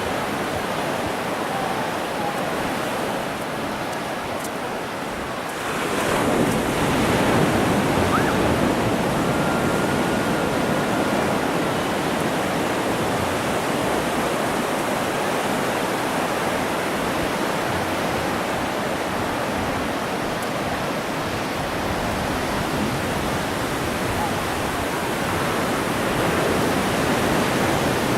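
Ocean surf on a beach: a steady wash of waves, swelling louder as a wave breaks about six seconds in.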